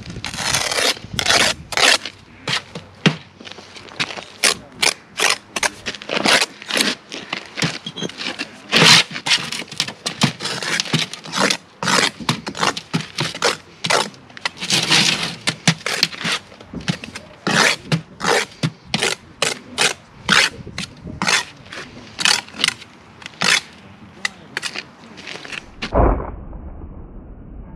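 Hand tools scraping on brick and mortar: rapid, irregular strokes, several a second, some short and some drawn out. They stop suddenly near the end.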